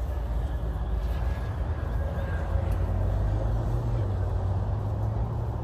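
An engine running at a steady idle, its low note stepping up a little about four seconds in.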